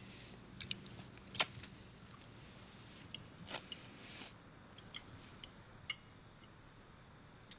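A crisp snack chip being bitten and chewed: a scattering of short crunches and crackles, irregularly spaced.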